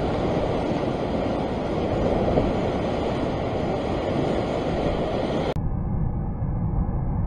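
Rough sea surf churning and breaking against a rock ledge, with wind on the microphone. About five and a half seconds in, the high end drops away abruptly and the sound turns duller.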